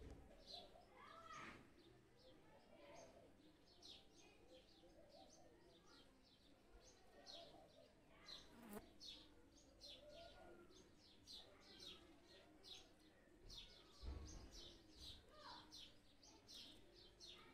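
Faint, irregular chirping of small birds, many short high chirps, over a quiet low background murmur, with a soft low bump near the end.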